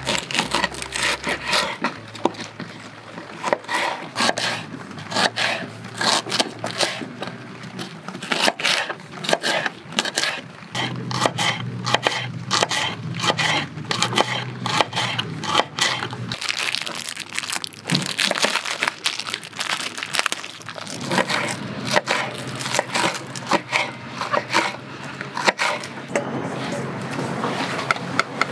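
Kitchen knife slicing myoga (Japanese ginger buds) thinly on a wooden cutting board: a quick, uneven run of crisp cuts with the blade knocking on the board.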